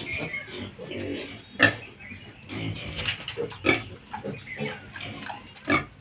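Ten-day-old piglets grunting in a quick run of short calls, with three louder, sharper sounds at about a second and a half, nearly four seconds, and near the end.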